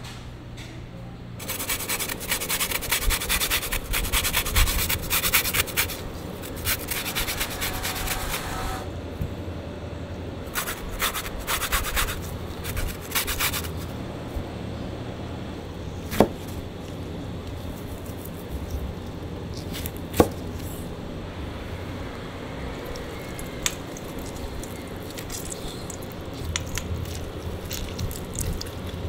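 Lemon rind grated on a fine rasp grater in quick rasping strokes through the first half. Then come two sharp knocks of a knife through a lemon onto a cutting board, and near the end a metal spoon scraping in coarse salt.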